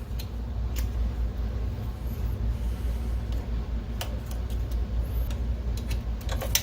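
Steady low hum with a few light clicks and taps as the projector's lamp module is handled during removal.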